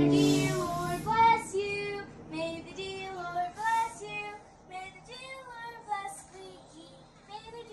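Young children singing in high voices in short phrases, the last note of the group's song dying away in the first second, the singing getting quieter toward the end.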